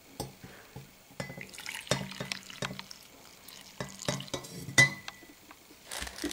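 Coffee poured from a glass carafe into a ceramic mug, splashing in uneven gushes. Several sharp clinks of glass on ceramic come with it, two of them ringing briefly.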